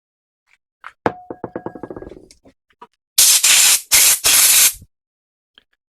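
A small metal damper part knocks onto the bench and rattles with a ringing tone for about a second, dying away. Then come three loud hissing blasts of pressurised air or cleaner, used to clean the damper parts.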